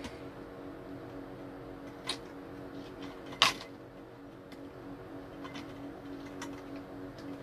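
Plastic parts of an Imarflex stand fan clicking and knocking as its pole and collar are fitted onto the base, with one sharp click about three and a half seconds in and a lighter one shortly before. A steady low hum runs underneath.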